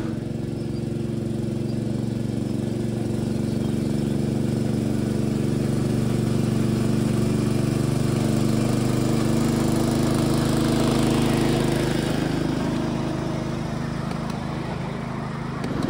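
Small petrol engine of a 7¼-inch gauge miniature locomotive with hydrostatic drive running steadily on the throttle, hauling the train. A low, even engine note that swells slightly mid-way and eases a little near the end.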